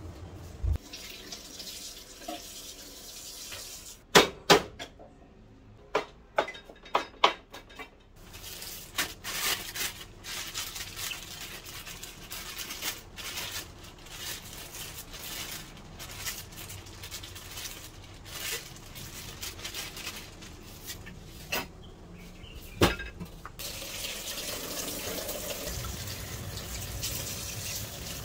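A cluster of sharp clicks and knocks, then a plastic bag rustling as white beech mushrooms are pulled out of it. After one more loud knock, about two-thirds of the way in, a kitchen tap runs into a stainless steel sink as the mushrooms are rinsed under the stream.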